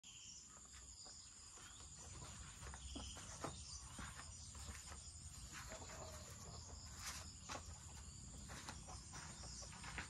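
Faint rural ambience: a steady high-pitched insect chorus runs throughout, with scattered light clicks and taps over a low background rumble.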